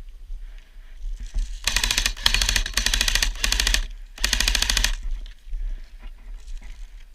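Airsoft gun firing on full auto as a rapid, even rattle of shots: one long burst of over two seconds, then a shorter burst right after.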